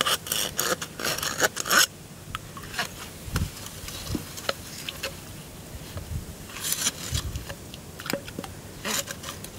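Scraping and crunching of a PVC pipe worked in thick clay mud, and a metal rod scraped through the pipe to push out the packed mud plug. The scraping is densest in the first two seconds, then comes in scattered knocks and short bursts.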